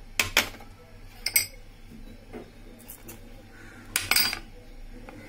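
Metal utensils clinking and knocking against a stainless steel mixer-grinder jar as ingredients are tipped in on top of bananas: two sharp clinks right at the start, another pair about a second in, and a short cluster about four seconds in.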